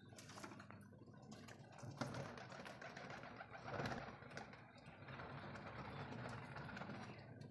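A flock of domestic pigeons pecking grain off a floor: a dense run of quick beak taps, with some cooing, growing louder for a moment about four seconds in.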